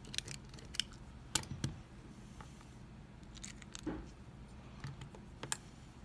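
Scattered sharp metallic clicks and taps, about eight of them at uneven intervals, the loudest near the end, as a metal tool works on an American 1205 padlock to take it apart.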